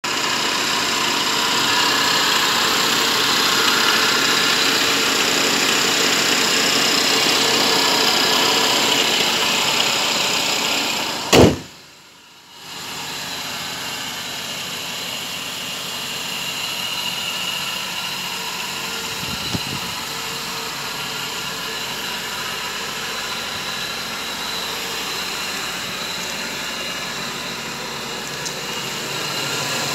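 Mercedes SLK230 Kompressor's supercharged 2.3-litre four-cylinder engine idling steadily, loudest with the bonnet open over the engine and quieter from beside the car. About eleven seconds in, a sharp click and a second-long dropout break the sound.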